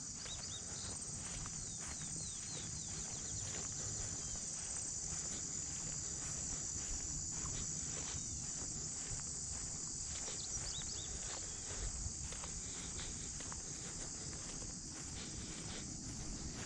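Steady high-pitched chorus of insects, with scattered soft footsteps or rustles on the trail.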